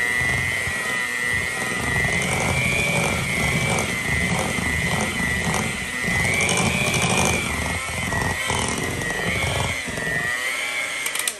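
Electric hand mixer running, its beaters churning flour into a thick cake batter; the motor's steady whine wavers slightly in pitch as the load changes, and it switches off at the very end.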